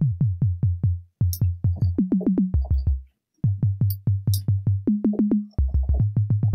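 808-style sub bass synthesized in Native Instruments Massive: a sine tone with a pitch envelope giving each note a kick-like clicky front, re-triggered in rapid stabs of about seven a second. The notes jump between a few low pitches, with two short breaks.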